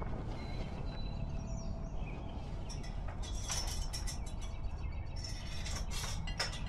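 Outdoor ambience: a few short bird chirps over a steady low rumble, then from about three seconds in a run of rustling and clinking handling noises.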